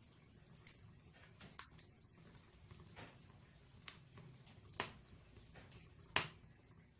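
Firewood burning in a fireplace, crackling with scattered sharp pops at irregular intervals, the loudest about six seconds in.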